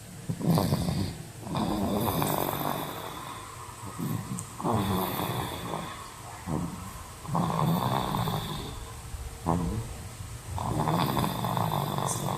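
A toddler snoring in his sleep, a snore with each breath about every three seconds.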